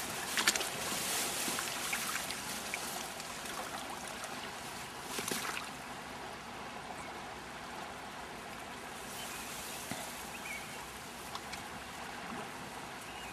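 River water flowing steadily, with a few brief clicks and rustles over it and a louder rustle about five seconds in.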